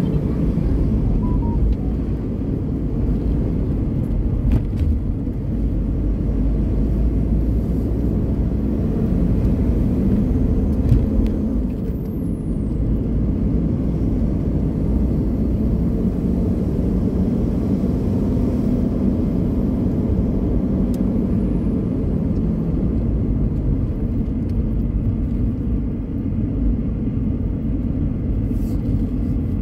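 Car driving along a road: a steady low rumble of engine and tyres.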